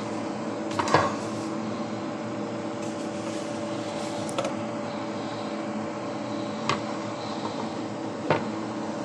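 A few short knocks and clicks from a black wire paper-towel holder and its cardboard tube as the empty tube is taken off and a fresh paper-towel roll is put on. The clearest knock comes about a second in and three lighter ones follow. A steady electrical hum runs underneath.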